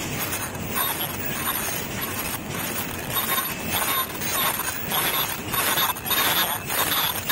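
Plastic bag making machine running: a steady mechanical din with faint high whines, broken by repeated knocks of the machine's strokes.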